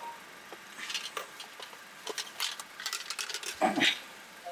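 Scattered light clicks and rustles from small items being handled inside a car, with one louder rustle about three and a half seconds in.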